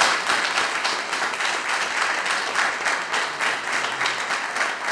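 Applause: many people clapping steadily.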